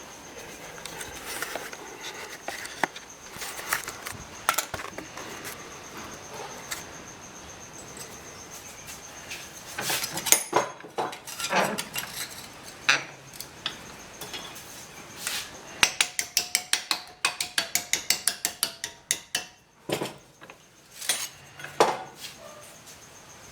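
A steel repair panel being worked with hand tools: scattered sharp metallic clicks and clinks, then a run of quick, even taps, about five a second, about two thirds of the way through.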